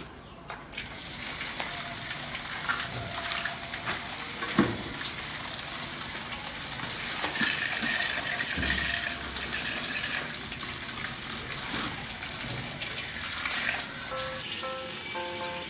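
Water splashing and sloshing as leafy greens are swished and rinsed by hand in a large aluminium basin, with a few knocks.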